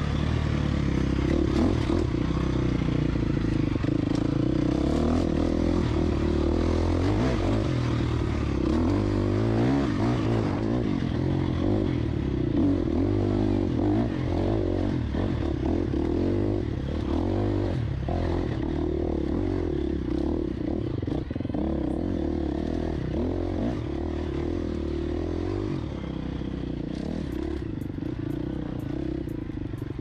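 Husqvarna FX 350 dirt bike's four-stroke single-cylinder engine running at changing throttle while being ridden along rough singletrack, heard from on the bike.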